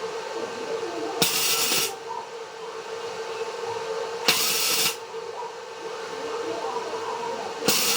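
Wire-feed (MIG) welder tack-welding steel: three short bursts of welding hiss, each about half a second long, roughly three seconds apart. A steady hum runs underneath.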